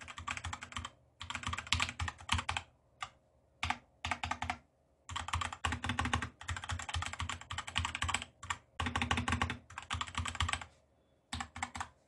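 Fast typing on a Ziyoulang K68 wireless mechanical keyboard with red switches: a pretty clicky clatter of keystrokes in bursts, broken by short pauses, with a last quick burst shortly before it stops.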